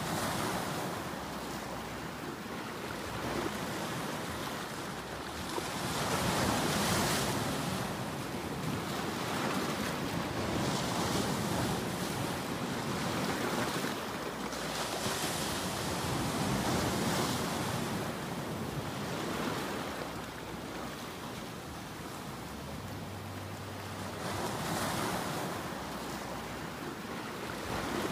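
Ocean surf: waves breaking and washing in, swelling and fading in slow surges every few seconds.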